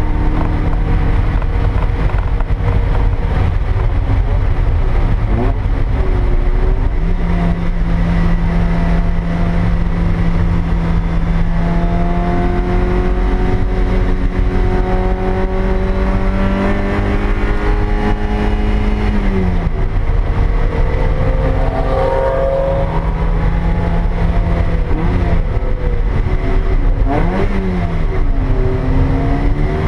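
2000 Toyota MR2 Spyder's stock 1ZZ 1.8-litre inline-four heard from inside the cabin while lapping a race track, over heavy road and wind rumble. The revs climb slowly for a long stretch in the middle, drop sharply, then rise and fall several times near the end.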